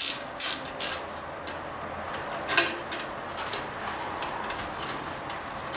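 Several sharp clicks in the first second and one more about two and a half seconds in, with fainter ticks and light handling noise between: small hand work on tractor wiring and fittings.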